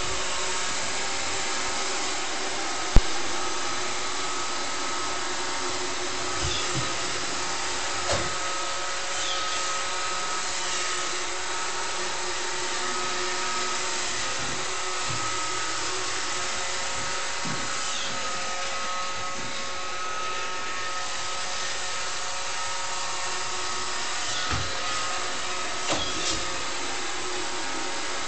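iRobot Roomba 530 robot vacuum running: a steady whirring motor noise with a thin high whine through it. A sharp click comes about three seconds in, and a few soft knocks follow later.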